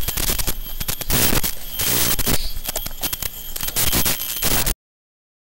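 Harsh, crackling static with rapid clicks from a racing drone's onboard FPV feed as its video signal breaks up. It cuts off suddenly about three-quarters of the way through.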